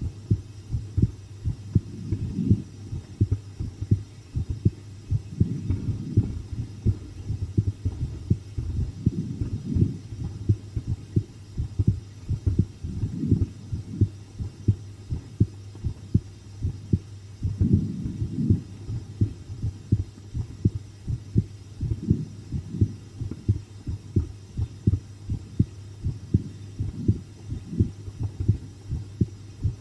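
A woman's own heartbeat recorded up close: a steady, regular run of deep, muffled thumps over a low steady hum. It is her pulse while watching a scary video, which she thinks runs faster than her usual.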